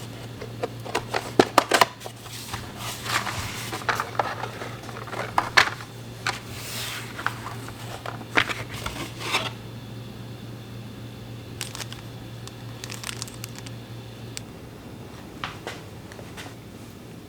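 Clicks, taps and rustling or scraping as bicycle parts and tools are handled during a build, busiest in the first half. A low steady hum runs underneath and stops near the end.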